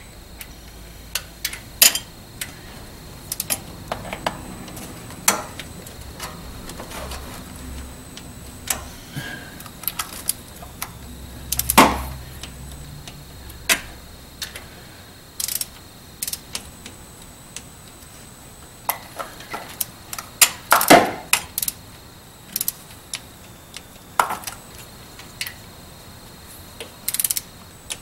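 Torque wrench and socket working the lower intake manifold bolts of a Vortec 5.7 small-block, tightening them evenly to 27 inch-pounds: irregular sharp metallic clicks and ticks, a few louder than the rest.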